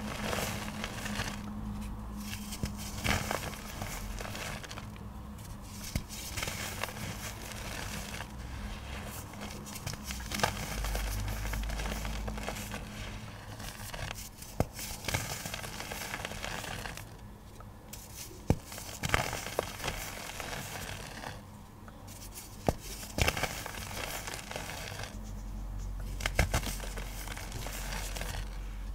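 Dry chunks of iron oxide pigment being crushed: a steady crackling crunch with many small sharp snaps and a few louder cracks.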